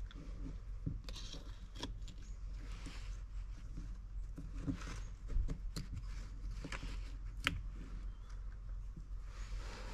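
A snowmobile's diaphragm carburetor being taken apart by hand: scattered light clicks and taps of small metal parts, with faint scraping, over a steady low hum.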